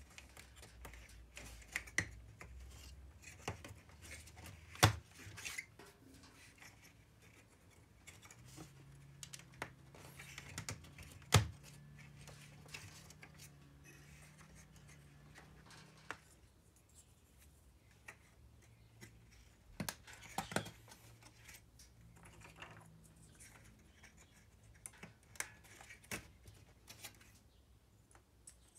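Thin walnut kumiko pieces clicking and scraping as they are pressed by hand into a wooden lattice panel: scattered light taps, with two sharper knocks about five and eleven seconds in.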